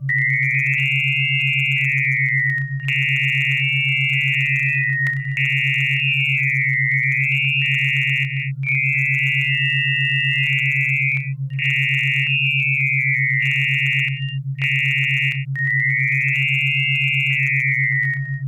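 A synthetic electronic tone signal whose upper tones are shaped to spell the word 'ARMONÍA' when drawn as a spectrogram, heard as shifting high electronic tones broken by a few short gaps. A steady low hum runs beneath it.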